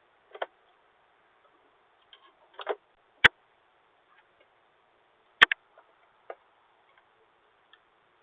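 A few scattered clicks and short knocks heard through a doorbell camera's thin-sounding microphone, the loudest being two sharp clicks about two seconds apart.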